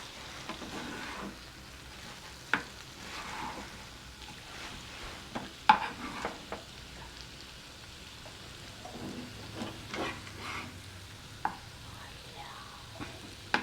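Dried shark fish frying in coconut oil, a steady sizzle, with a few sharp knocks and scrapes of a spatula on the pan as the pieces are turned over. The loudest knock comes about six seconds in.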